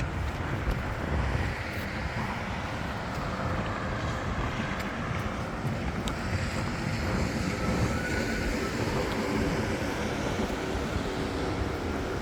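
Steady city street ambience: a low rumble of traffic passing, mixed with wind on the microphone.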